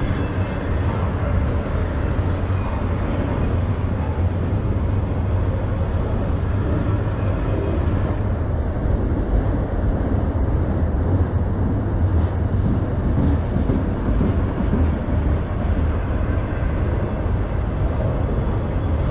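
Freight train cars (autoracks and boxcars) rolling past: a steady rumble of steel wheels on the rails.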